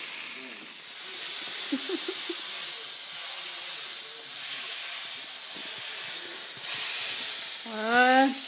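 Seasoned meat sizzling steadily in a hot frying pan. Near the end there is a short, wavering vocal sound.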